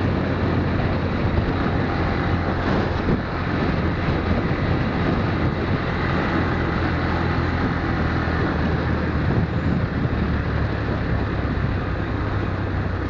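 Motorcycle engine running steadily while riding, a constant low drone under a haze of road noise.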